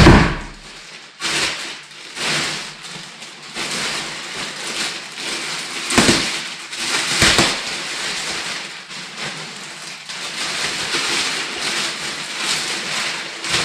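Packaging and a textile motorcycle jacket being handled: irregular rustling and crinkling, with a sharp knock at the start and two more about six and seven seconds in.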